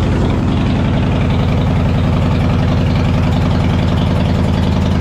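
A bagger motorcycle's engine running steadily at low rpm on a chassis dyno, held at a constant speed while it is tuned for the low-rpm cells of its fuel map.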